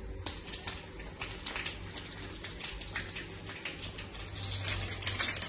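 Hot coconut oil spluttering in a kadai as mustard seeds and dried red chillies fry for a tempering, a dense run of irregular crackles and pops over a light sizzle, with a sharper spit just after the start as the chillies go in.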